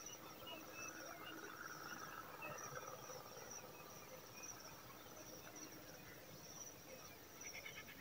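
Faint outdoor ambience: a high insect trill that comes and goes in pulses, with scattered faint chirps and a quick run of chirping notes near the end.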